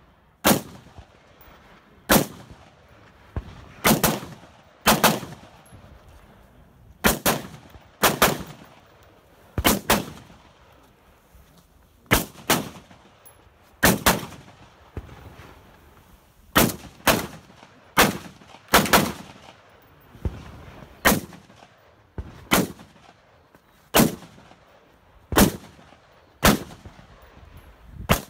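Semi-automatic AR-style rifle firing through a course of fire: sharp cracks every second or two, often as quick pairs of shots, each with a short echo.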